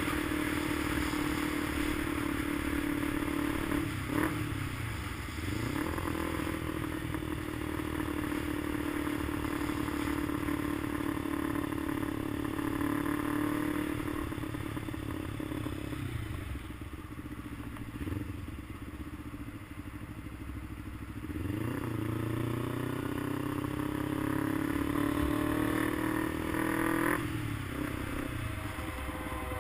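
A vehicle engine running on the road. Its pitch drops and climbs again about four seconds in and near the end, like gear changes, and it eases off in the middle before it picks up again.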